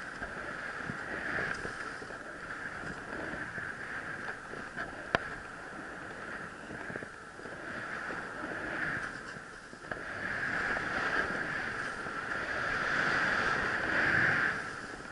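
Skis running through deep powder snow: a continuous rushing swish that swells and eases with the turns, loudest near the end, mixed with wind on the head-mounted camera. A single sharp click about five seconds in.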